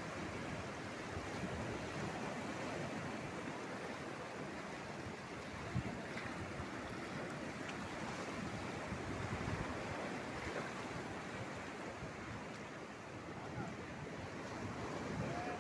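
Ocean surf breaking and washing over a rocky shore shelf in a steady rush, with one brief knock about six seconds in.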